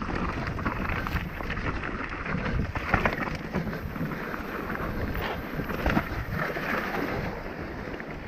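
Mountain bike riding down a rocky dirt trail: tyres crunching and rumbling over loose stones and the bike rattling, with a few sharp knocks about three and six seconds in, under steady wind noise on the microphone.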